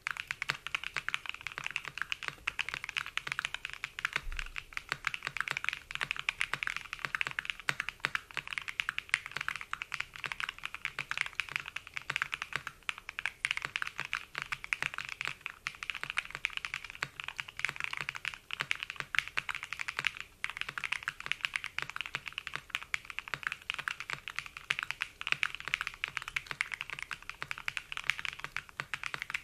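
Fast, continuous typing on a Matrix 6XV 3.0 Corsa custom mechanical keyboard with an aluminium plate and Nerrysicles franken linear switches: a dense, even stream of keystrokes with a creamy sound.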